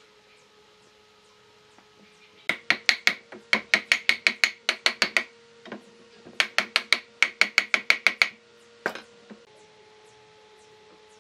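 Two quick runs of sharp knocks on wood, about six a second and each lasting a couple of seconds, then two single knocks: wooden frame joints being tapped together. A faint steady hum lies under it.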